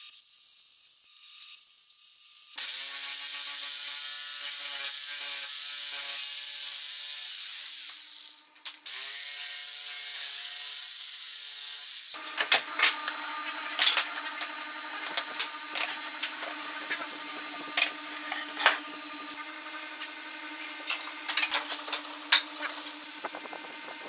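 Bandsaw running and cutting through a pine board, with a steady motor hum and sawing noise that breaks off briefly midway. About halfway through it gives way to a second power tool working wood: a steady hum with many sharp ticks and knocks.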